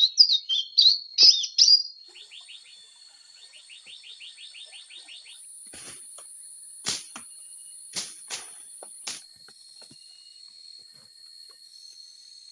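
Bird chirping loudly in quick repeated calls for about the first two seconds, then forest insects: a fast ticking trill and steady high-pitched buzzing tones. Several sharp clicks come in the middle.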